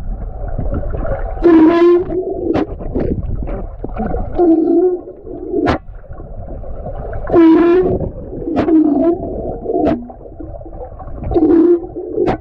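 Missile fireworks going off under water in a swimming pool: a string of sharp pops with wavering, whistling tones between them over a constant watery rumble.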